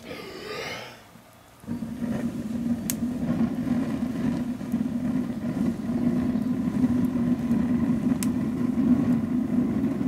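A quick breath in, then a long steady blow through a telescopic pocket bellows tube into a wood-burning stove's fire. From about two seconds in, the air rushes with a low, steady drone that holds for about eight seconds as the forced draught fans the flames.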